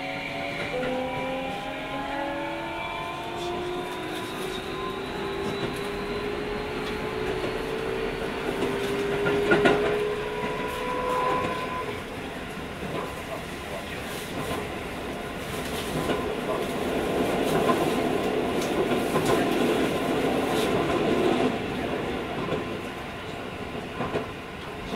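Keio 5000 series electric train heard from inside a car. Over the first ten seconds or so the motor whine climbs in pitch in steps as the train accelerates. It then gives way to steady rolling noise that grows louder in the middle, with clicks of the wheels over rail joints.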